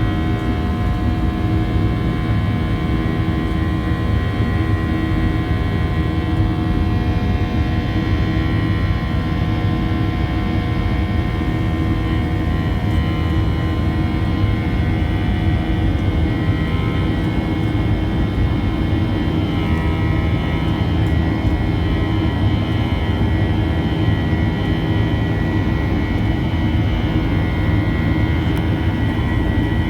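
Boeing 737-800's CFM56-7B turbofan engines heard from inside the cabin at high power, a loud steady rumble with several steady whining tones over it.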